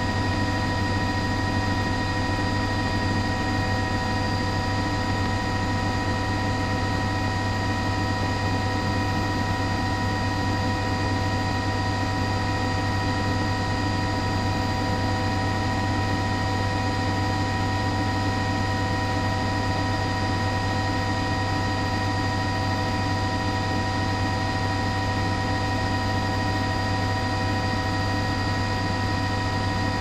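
A steady machine drone: a low hum with several constant higher tones over it, unchanging throughout.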